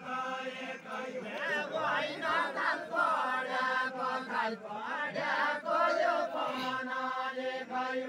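Group of voices singing a deuda folk song together as a chant, in held notes and repeating phrases.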